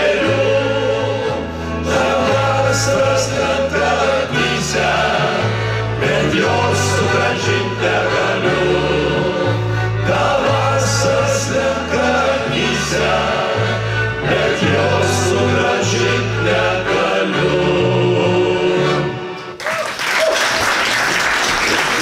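Men's vocal ensemble singing in harmony, accompanied by accordion and violin. The song ends near the end, and audience applause breaks out.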